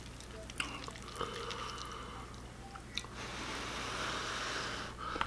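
Ramen noodles lifted out of a bowl with wooden chopsticks: small wet clicks and squishes. About three seconds in, a steady breathy hiss of someone blowing on the held-up noodles.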